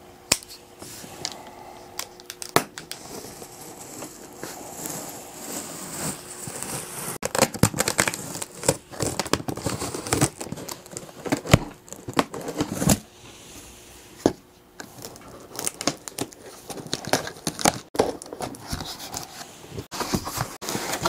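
A pocketknife cutting open a cardboard monitor box: irregular scraping, tearing and crinkling of cardboard, with sharp clicks, then the cardboard lid being handled and lifted.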